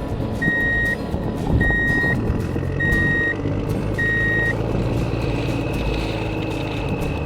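Reversing beeper of a radio-controlled construction toy sounding four evenly spaced high beeps about a second apart, stopping about halfway through. A steady electric motor whine follows over a low rumble.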